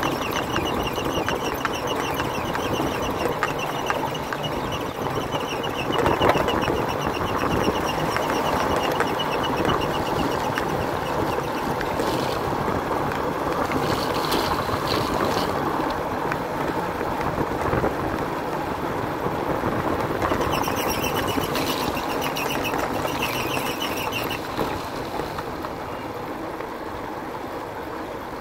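Motorbike running along a rough dirt track, its engine and the road and wind noise heard from the pillion seat as a steady rush.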